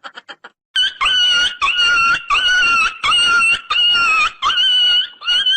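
A comedy sound effect of high-pitched whining cries, about seven of them in quick succession, each about half a second long with a wavering pitch. It is preceded by the fading end of a rapid stuttering effect in the first half second.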